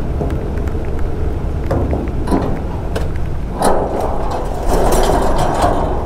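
Scattered metallic clanks and knocks from a motorcycle being manhandled on a steel ferry ramp, over a steady low rumble. The noise gets louder and rougher a little past halfway.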